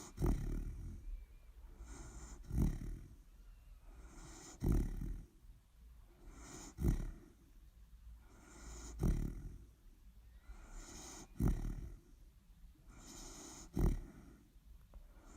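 A sleeping dog snoring in a steady rhythm, one snoring breath about every two seconds, seven in all, each starting sharply and trailing off into a soft hiss.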